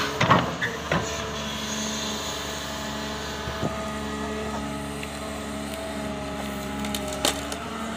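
Caterpillar 320D excavator's six-cylinder diesel engine running steadily under digging load, with a few sharp knocks from the bucket working in the soil; the loudest come just after the start, with another about a second before the end.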